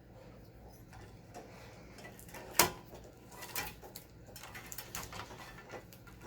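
Faint scattered clicks and ticks of hand work on a car radio wiring harness, with one sharp click about two and a half seconds in.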